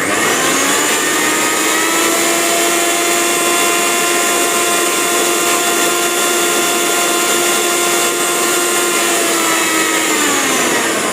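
Bosch 1000-watt mixer grinder motor starting suddenly and running at full speed with a steady, loud whine, measured at 97 dB. Near the end it is switched off and the whine falls in pitch as the motor winds down.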